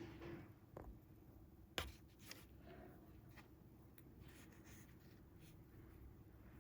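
Near silence with faint handling sounds as fishing line and hooks are worked by hand: light rustles and ticks, with one sharper click a little under two seconds in.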